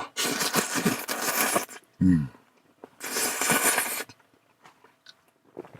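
A man slurping noodles: a long noisy slurp, a short low grunt about two seconds in, then a second, shorter slurp.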